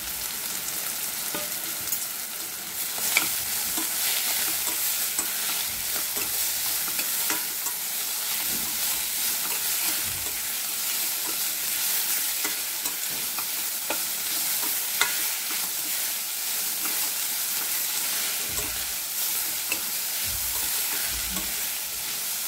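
Safflower (kardai) greens frying in oil with cumin and garlic in a stainless-steel kadhai: a steady sizzle as they are stirred and tossed, with occasional clicks of the utensil against the pan.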